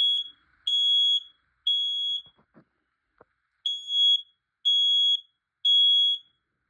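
Smoke alarm sounding its test alarm after its test button is pressed: a loud, high-pitched tone in the temporal-three pattern of three half-second beeps about a second apart, a pause, then three more.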